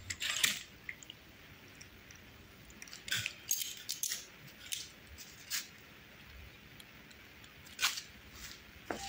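Scattered clicks and light plastic rattles from a throttle grip being pushed onto an electric-bike handlebar, sharpest near the start, around three to four seconds in and near eight seconds.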